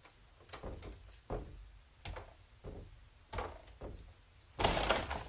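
Wooden bedroom door being shoved repeatedly against something holding it from behind, giving about six dull knocks roughly two-thirds of a second apart. Near the end comes a louder, longer burst of noise.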